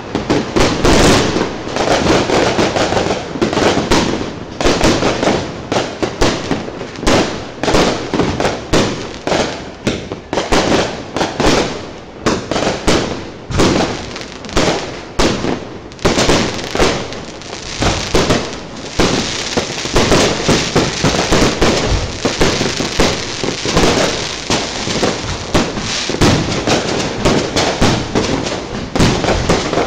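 Aerial fireworks going off in a dense, nearly continuous barrage: overlapping bangs and crackles, several each second.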